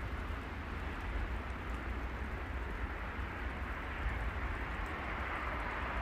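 Spirit box sweeping radio stations, giving a steady hiss of radio static with no clear words.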